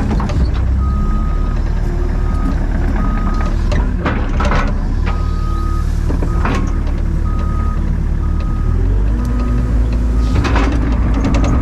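Takeuchi TB285 compact excavator's diesel engine running, with its travel alarm giving short repeated beeps in runs as the machine moves, and a few rattling clanks from the machine.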